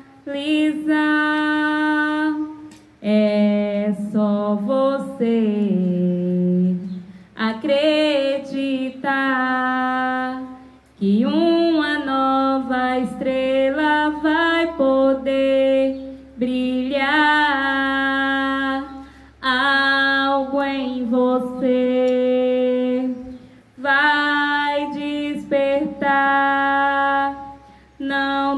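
A woman singing solo into a handheld microphone: slow phrases of long held notes, with short breaks for breath between them.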